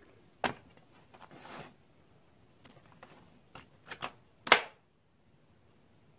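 Steel letter punches clicking and clattering in their plastic case as one is picked out, with a few light knocks and one sharper knock about four and a half seconds in.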